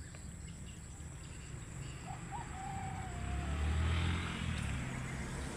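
Motorbike passing on the road: an engine rumble that builds from about two seconds in, is loudest near four seconds, then eases off. A clear, slightly falling tone is heard for about a second and a half before the peak.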